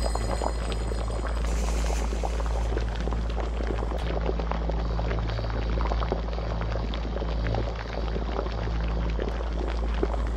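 Eerie soundtrack: a low steady drone under a dense, bubbling, crackling texture.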